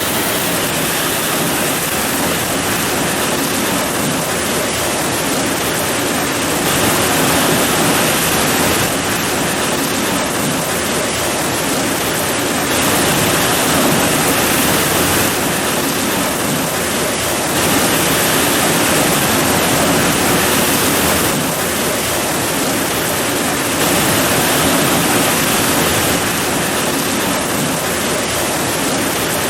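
Heavy rain pouring steadily, a dense even hiss whose loudness swells and eases a little every few seconds.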